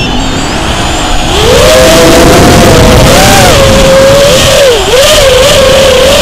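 FPV quadcopter's brushless motors and propellers whining, loud and close. The pitch climbs about a second in, then rises and dips repeatedly as the throttle changes, over a steady noisy rush.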